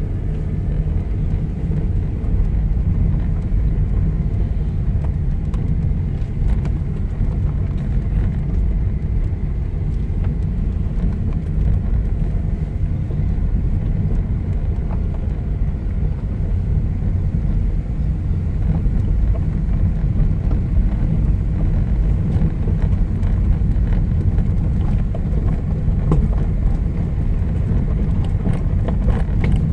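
Car driving slowly on a rutted dirt track, heard from inside the cabin: a steady low engine and tyre rumble, with a few light knocks from bumps near the end.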